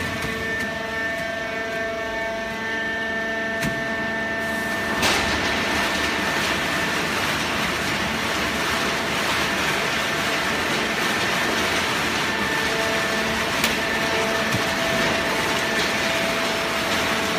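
Hydraulic horizontal baling press running: a steady machine drone with a high whine, growing noisier about five seconds in, with a few light knocks.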